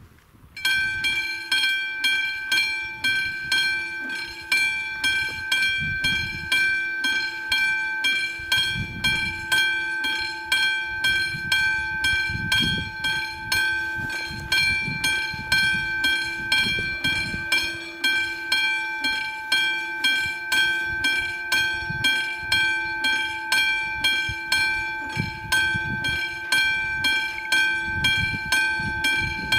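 The classic electric bell of an AŽD 97 level-crossing warning system starts about half a second in and rings steadily in evenly spaced strikes, roughly two a second. It is warning that a train is approaching.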